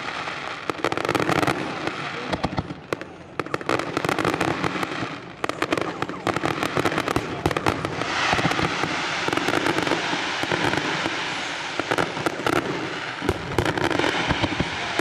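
Fireworks display: a rapid run of sharp pops and crackles, thickening into a dense, continuous crackle about eight seconds in.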